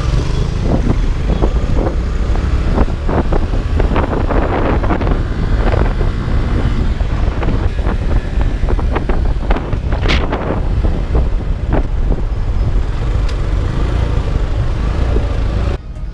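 Road vehicle on the move: steady low rumble with wind buffeting and crackling on the microphone. The sound drops off suddenly near the end.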